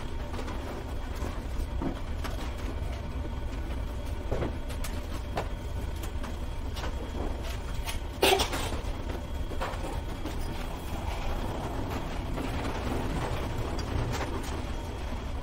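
Steady low background rumble, with scattered small knocks and one louder clack about eight seconds in.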